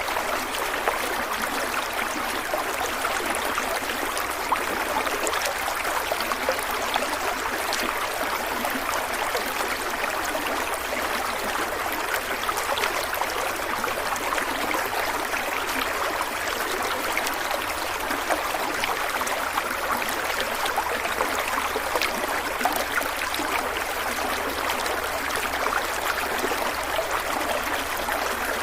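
Stream water flowing and trickling over rocks, a steady rushing with small splashes throughout.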